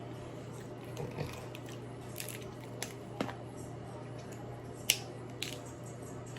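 Scattered sharp clicks and crackles of seafood shells being cracked and peeled by hand, the loudest about five seconds in, over a steady low hum.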